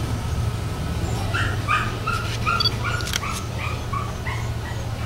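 An animal's short, high calls, about a dozen quick yips in three seconds, over a steady low hum, with a couple of sharp clicks in the middle.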